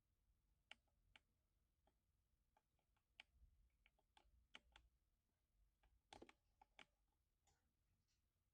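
Faint, irregular keystrokes on a lubed 60% mechanical keyboard: slow, scattered typing with a quick flurry of keys about six seconds in.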